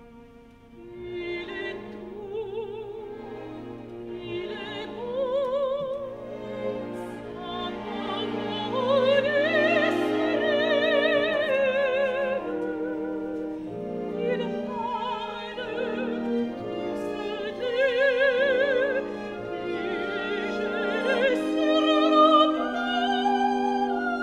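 Operatic soprano singing with wide vibrato over an orchestra, her line climbing to loud high notes about nine seconds in and again near the end.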